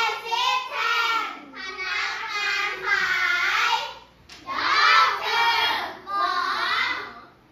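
A class of young children singing along to an English occupations song, in short phrases with brief pauses between them.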